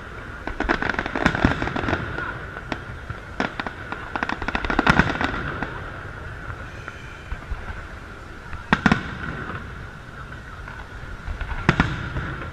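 Aerial fireworks shells bursting overhead: repeated crackling bangs, with a heavy cluster about five seconds in and single loud bangs about nine and twelve seconds in.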